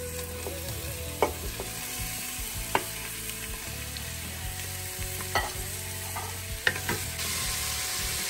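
Sliced onions sizzling in hot oil in a pressure cooker as they are stirred, with a few sharp knocks of the wooden spatula against the pot.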